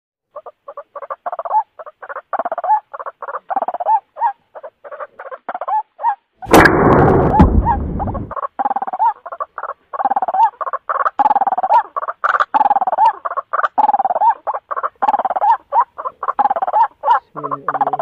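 White-breasted waterhen calling: a rapid, monotonous run of short croaking notes, about four a second. About six and a half seconds in, a loud burst of noise lasting nearly two seconds cuts across the calls.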